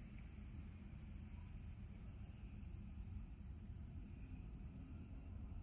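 Steady high-pitched insect chorus that dips briefly near the end, over a low steady rumble.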